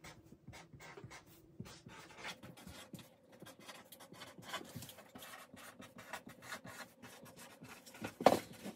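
Black marker pen scratching in many short strokes across a corrugated cardboard box as an address is written on it, quiet overall, with one louder sharp knock near the end.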